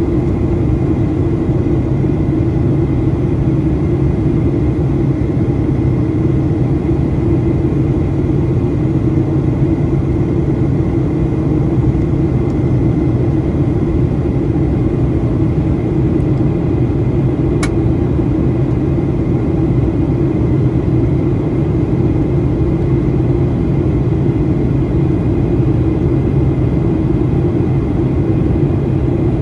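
Boeing 737-800 cabin noise heard from a seat beside the wing during descent: its CFM56-7B turbofan engines and the airflow make a steady low drone. A faint click sounds once about 18 seconds in.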